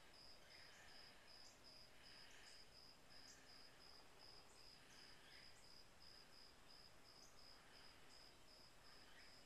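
Faint cricket chirping: a high, thin pulse repeating evenly about four times a second.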